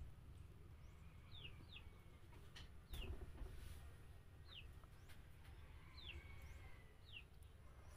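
Faint bird chirps: short, high calls falling in pitch, about six of them at irregular gaps, over a low steady hum. A light clink sounds about three seconds in.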